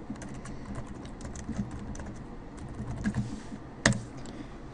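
Typing on a computer keyboard: a run of light key clicks, with one sharper, louder keystroke about four seconds in.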